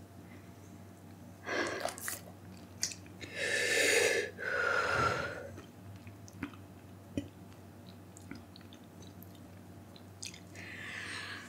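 A person blowing out hard through pursed lips against the burn of an extremely hot chili chip: four exhales, the middle two long and back to back and the loudest, with small mouth clicks and lip smacks between them.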